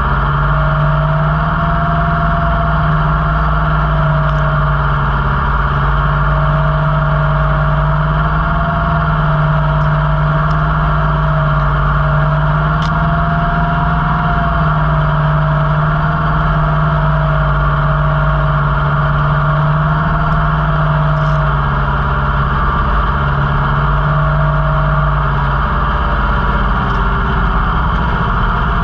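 Kubota L5018 tractor's diesel engine running steadily as the tractor drives through dry corn, its pitch wavering slightly, with a few faint ticks.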